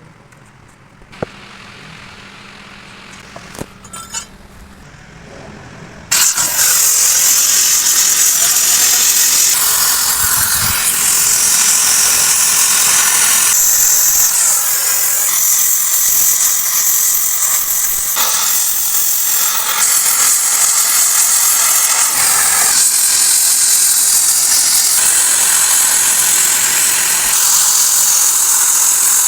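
Loud, steady hissing power-tool noise working on steel starts suddenly about six seconds in and changes pitch and load every few seconds, after a quieter stretch with a few clicks.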